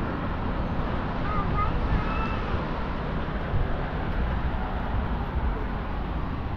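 City street ambience: a steady low rumble of traffic mixed with wind buffeting the microphone, with faint voices now and then.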